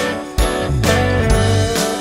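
Background music with a steady beat of about two drum hits a second over a bass line.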